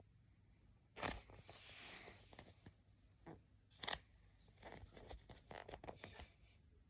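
Faint handling and squeezing of a polyurethane-foam squishy toy: soft crinkly rustles and small clicks, with two louder clicks about a second in and about four seconds in, and a quick run of small clicks near the end.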